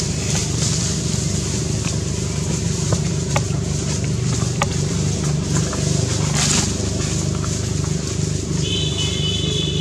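A motor running steadily with a low hum, with a few faint clicks through the middle and a brief high-pitched squeak near the end.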